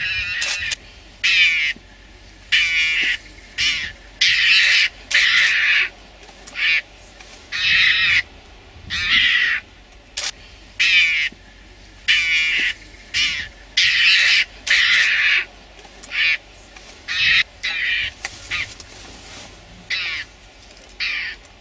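An animal's repeated harsh, raspy calls, about one a second, each lasting a fraction of a second.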